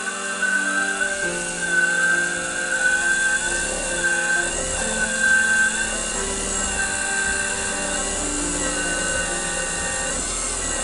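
King KWL-813VS variable-speed wood lathe running with a steady whine while a cloth rubs Yorkshire Grit microfine abrasive polish onto the spinning bowl. Background music with sustained chords that change every second or two plays over it.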